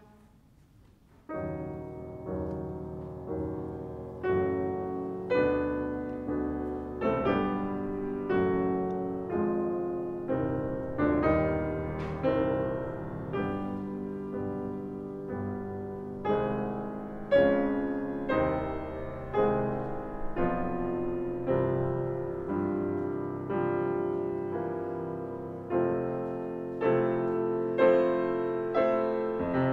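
Steinway grand piano playing solo classical music, notes and chords struck about once a second and left to ring out. The playing begins after about a second of near silence.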